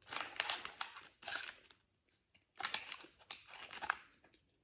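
Candy wrapper crinkling as it is handled, in two bouts of about a second and a half each.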